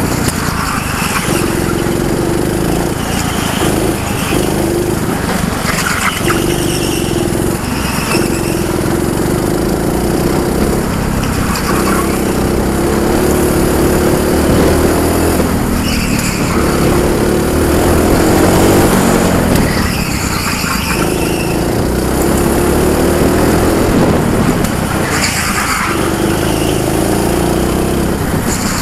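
Junior kart's engine, heard from on board, running hard down the straights. Its revs drop briefly every few seconds as the driver lifts off for the corners, then pick up again.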